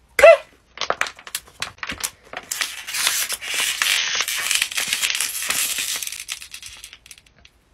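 Thin plastic water bottle being twisted tight with both hands, its walls crackling and crinkling. The crackles thicken into a dense crinkle in the middle and fade out near the end.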